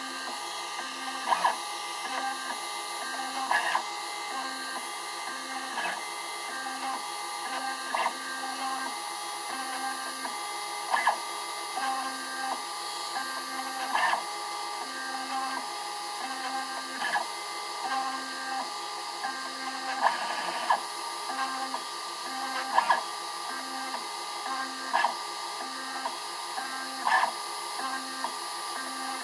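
Stepper motors of a small CNC laser cutter running in short moves that start and stop about once a second as the laser head traces small pad openings. A steady high whine sits under it, with louder short blips every couple of seconds.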